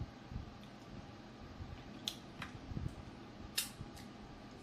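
Close-miked eating sounds: a person chewing seafood with wet mouth and lip smacks, a few of them sharp clicks, the clearest about two seconds and three and a half seconds in.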